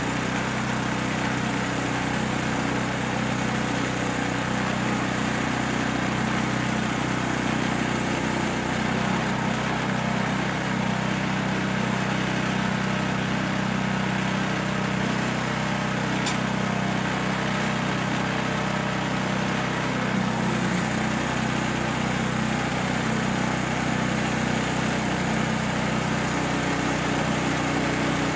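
Woodland Mills 122 portable bandsaw mill: its small gasoline engine running steadily under load as the blade saws slowly along a large spruce log, cutting a 2 by 10 board. A single sharp tick is heard about midway through.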